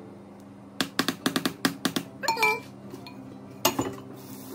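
Spatula knocked against the rim of a glass mixing bowl to shake off the last of the cake batter: a quick run of about eight clinks, a brief squeak, then one more sharp clack.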